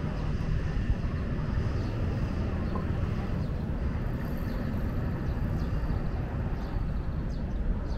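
Steady low rumble of outdoor harbourside ambience, with a few faint, short high chirps in the second half.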